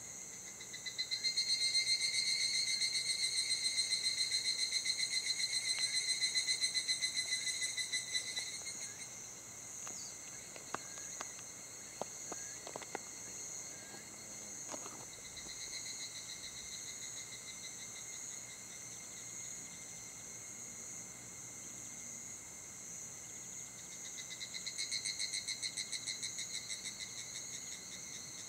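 Insects calling: a steady high trill throughout, joined by a louder, rapidly pulsing insect call from about a second in until about eight seconds, and again near the end.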